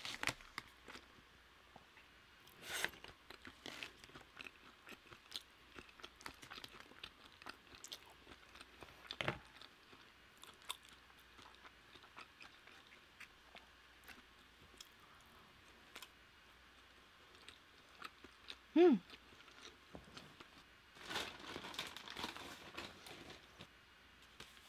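Close-miked chewing: soft mouth clicks and smacks of someone eating. About three-quarters of the way through there is a short hummed "mm", and near the end a louder stretch of crunching.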